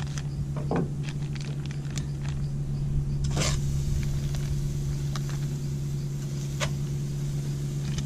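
Steady low engine drone holding one pitch, with a few light clicks and taps on top.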